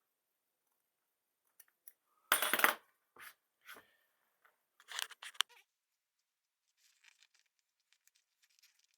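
Hand-work handling noises: a few sharp clicks and short scraping or rustling bursts, the loudest about two and a half seconds in and another cluster about five seconds in, then faint crackling.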